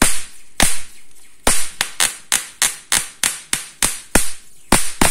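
High-voltage sparks snapping between the two poles of a booster as burning paper is held between them: a rapid, uneven series of sharp cracks, about three or four a second.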